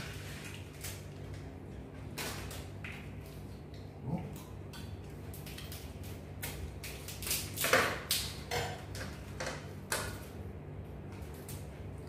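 Crab being eaten: scattered sharp cracks and clicks of shell being broken and picked apart, with a cluster of louder cracks about two-thirds of the way through. A faint steady hum sits underneath.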